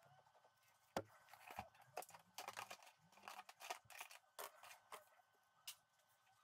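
Faint handling noise of a thin cardboard strip being bent and pressed onto a papier-mâché shell: irregular light scrapes, rustles and clicks, with a sharper click about a second in.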